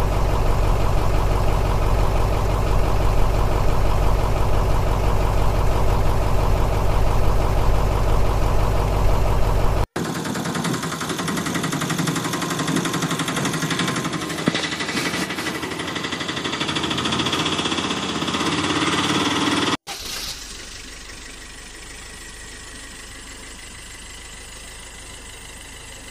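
Engine-like running sound in three sections split by abrupt cuts about ten seconds apart. The first is a loud, steady, deep hum, and the last section is quieter.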